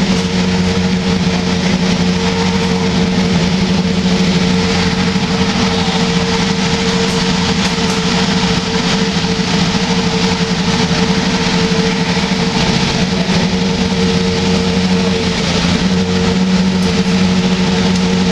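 Steady mechanical drone holding one constant pitch, over an even wash of background noise.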